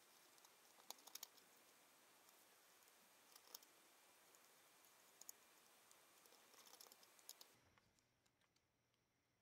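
Near silence with a few faint, scattered clicks and taps; the background hiss drops away about three-quarters of the way through.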